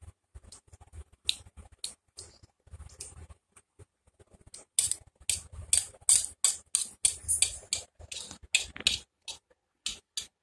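A metal fork clinking and scraping on a steel plate as pasta is picked up: faint scattered taps at first, then from about halfway in a quick run of sharp clicks, several a second, that stop just before the end.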